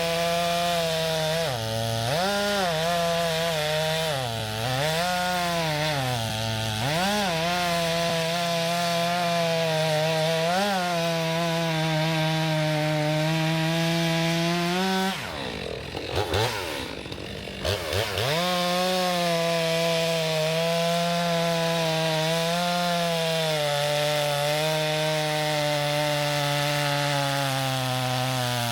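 STIHL MS462 two-stroke chainsaw cutting through maple logs at full throttle. The engine note dips briefly a few times in the first seven seconds, falls off for a couple of seconds about halfway through, then comes back up to full speed.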